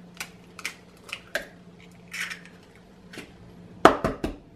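Eggs being tapped, cracked and their shells handled over a plastic mixing bowl: a run of short, sharp clicks and cracks, with the loudest cluster near the end.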